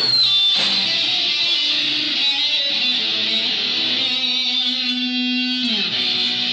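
Electric guitar playing through an amplifier, with a run of notes and then a long held note for about two seconds that slides down in pitch near the end.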